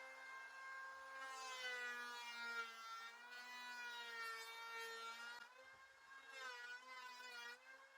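WEN 6530 electric hand planer running, a steady motor whine that wavers and dips in pitch in the second half as it takes passes across an old board.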